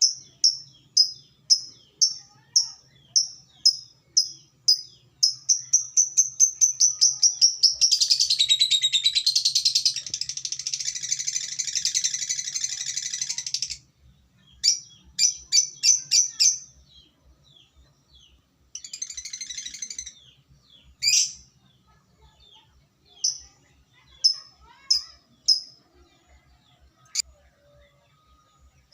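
Lovebird singing: sharp, high chirps about three a second speed up and run into a long, unbroken rapid chatter of about six seconds, the 'ngekek' song. After it come scattered chirps, a shorter burst of chatter and a few lone calls.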